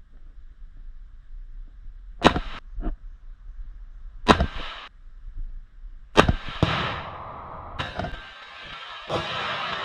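Firearm shots fired one at a time, about six over several seconds, one to two seconds apart. A steady rushing noise fills in behind the later shots.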